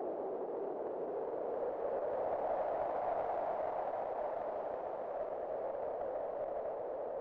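Wind blowing: a steady rushing hiss centred on a middle pitch, which swells and rises slightly in pitch about two to three seconds in, then eases back.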